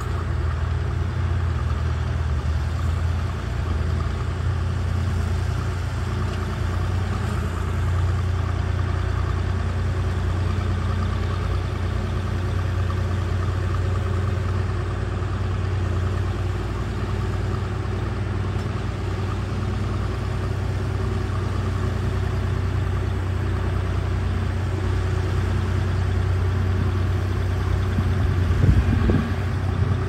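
Diesel engines of small crawler bulldozers running steadily as they push soil, a loud low hum. A few clanks near the end.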